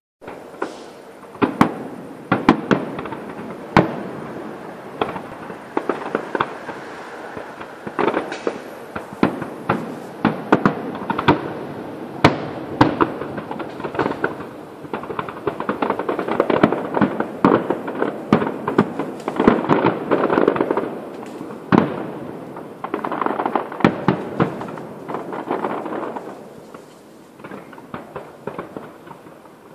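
Fireworks display heard from a distance: aerial shells bursting in many sharp bangs at irregular intervals, with a dense crackle between them that thickens in the middle and thins out towards the end.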